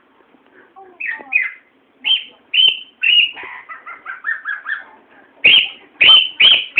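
Cockatiel calling: a run of short, high chirps, many sliding down in pitch, ending in four loud calls in quick succession.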